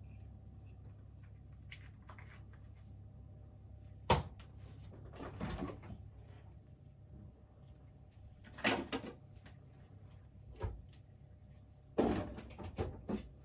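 Kitchen handling noises: separate knocks and clatters of things being set down and moved, with a sharp knock about four seconds in, another cluster a few seconds later, and a quick run of several near the end, over a low steady hum.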